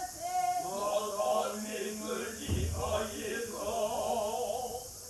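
Noh chant (utai) sung by a small jiutai chorus of men's voices, several voices together on long held, wavering notes. A low thud about halfway through.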